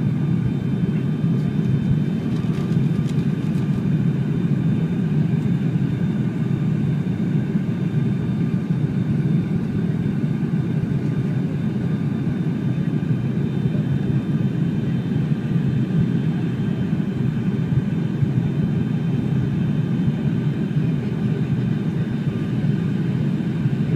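Airliner cabin noise during the landing approach: a steady drone of engines and airflow, with a few faint steady higher tones over it.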